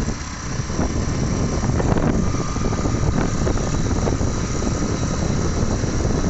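Steady vehicle running and road noise while travelling along the highway, with wind buffeting the microphone in a continuous low rumble.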